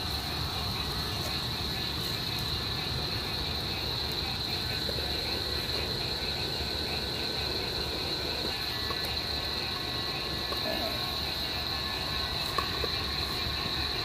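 Crickets chirping steadily in a continuous high trill over a steady low rumble, with a single sharp click near the end.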